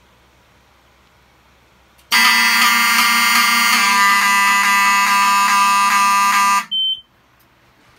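Fire alarm horns, the Wheelock 7002T-24 horn strobes and 34T-24 horn, sounding in one loud, steady, buzzy blast for about four and a half seconds as a smoke detector is tripped in walk test, then cutting off sharply. A brief high beep follows right after.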